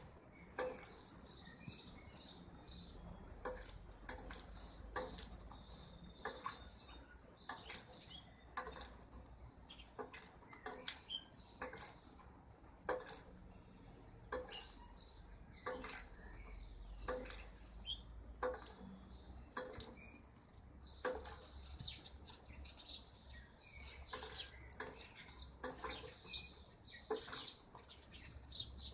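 Small birds bathing in a dog's water bowl, fluttering their wings in the water, with quick, irregular splashes and flaps.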